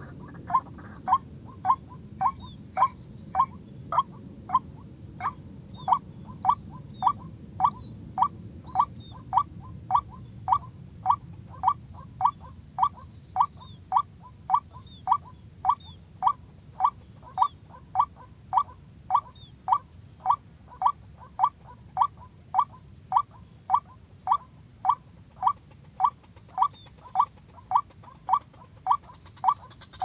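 White-breasted waterhen call: one short, slightly falling note repeated at a steady pace of about two a second, every note the same.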